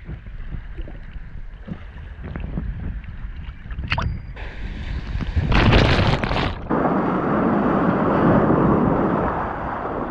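Ocean surf with wind buffeting the microphone. About five and a half seconds in, a wave surges loudly, then water rushes steadily.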